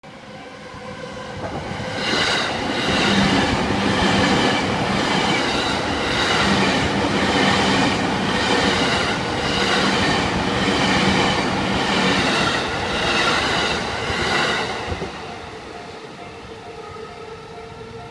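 Yamanote Line electric commuter train passing a level crossing: it builds over about two seconds, runs loud with a regular clatter of wheels over the rail joints, and fades after about fifteen seconds. Near the end the crossing's warning bell rings in a steady repeating pattern.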